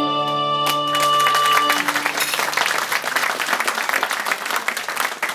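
An Irish dance tune ends on a long held chord, with one sharp tap just under a second in. Audience applause breaks out about a second in, overlaps the fading chord, and carries on.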